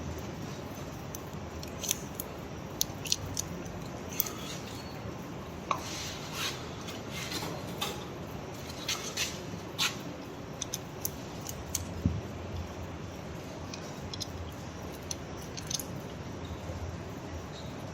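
Irregular light metallic clicks and taps of surgical instruments as an intramedullary pin is worked slowly into a calf's tibia, over a steady background hiss.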